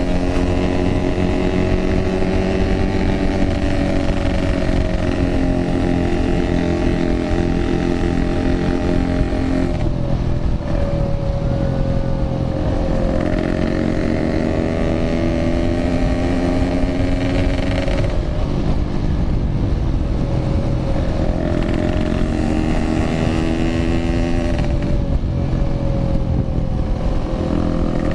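Yamaha RX-King's 135 cc two-stroke single-cylinder engine through a Packing Power aftermarket exhaust, riding under way. The engine note eases off and drops three times, about a third of the way in, past halfway and near the end, then climbs again as the throttle opens.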